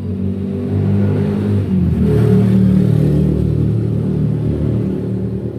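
Mitsubishi Canter's four-cylinder turbodiesel engine running, rising in speed about two seconds in and then holding higher, while its injection-pump fuel setting is being adjusted for more power.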